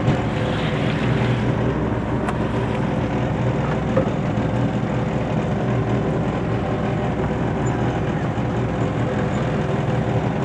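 Fishing boat's engine running steadily at an even speed, a constant low hum, with a faint knock about four seconds in.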